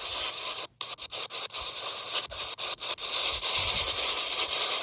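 Spirit box sweeping through radio stations: a steady static hiss chopped by quick breaks several times a second as it jumps from channel to channel, with one short drop-out about a second in.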